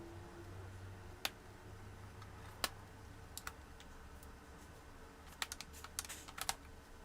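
Sharp clicks and taps of netbook parts being handled and pried apart during disassembly: single clicks about a second and a half apart early on, then a quick flurry of clicks near the end.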